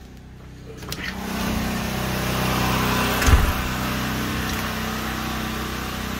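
A door latch clicks about a second in, and the steady drone of a Predator 9000 portable generator running under household load grows much louder and stays even. A single brief low thump comes near the middle.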